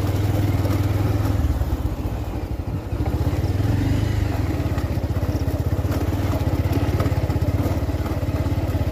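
Motorcycle engine running steadily while riding along a dirt track, with a fast, even pulsing; the engine eases briefly about two seconds in, then picks up again.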